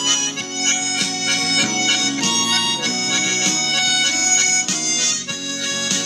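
Harmonica playing a tune, several notes sounding together as chords that change every half second or so.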